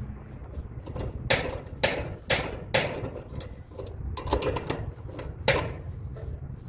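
Sharp metallic knocks and clanks of locking pliers clamped on a clothes dryer's motor shaft being handled against the motor and the machine's sheet-metal base: half a dozen irregularly spaced knocks.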